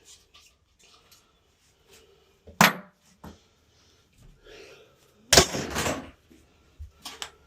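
Scattered knocks and clatter of hard objects being handled: a sharp knock about two and a half seconds in and a longer, louder clatter a little past five seconds, with small clicks between.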